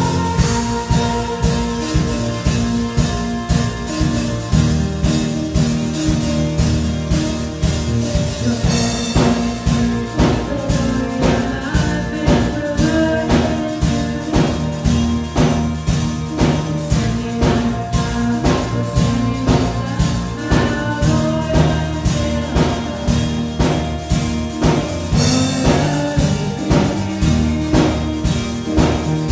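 Live worship band playing a steady rock beat on drum kit, electric guitar and bass guitar, with a woman singing lead.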